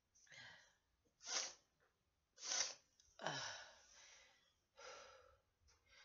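A woman's laboured, noisy breathing through a chest infection: about five breaths, two sharp ones near 1.4 s and 2.6 s, then a longer breath out. She says she can hear herself wheezing.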